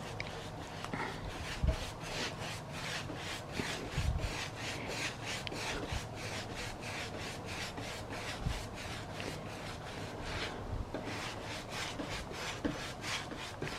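Rhythmic back-and-forth rubbing strokes on the wooden table, about three a second, with a couple of soft knocks against the wood.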